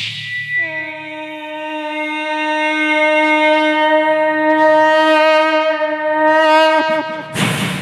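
A man's mouth imitation of a departing train: after a brief hiss, a long horn-like whistle held on one pitch for about six seconds, ending in a short burst of noise like a steam chuff.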